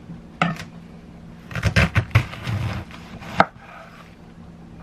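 Knife cutting through cabbage against a cutting board: one early cut, a quick run of several cuts in the middle, and a single sharp knock near the end.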